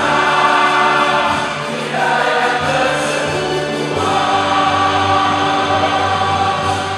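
A group of people singing together in chorus over accompanying music, in long held notes.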